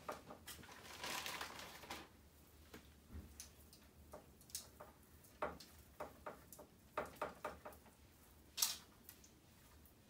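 Raw seasoned chicken drumsticks being set down on a wire rack over a metal baking sheet: scattered soft taps and clicks, with a brief rustle about a second in and the loudest tap near the end.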